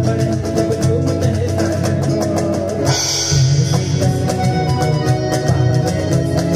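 Live instrumental passage on acoustic guitar, keyboard and cajon, with a fast run of percussive strokes over sustained notes. A cymbal crashes about three seconds in.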